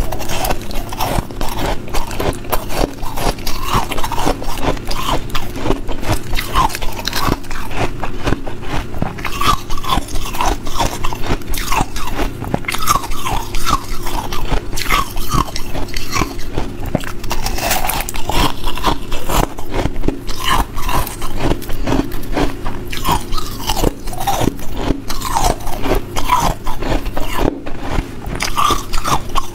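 Hard ice being bitten and chewed: a dense, continuous run of sharp cracks and crunches.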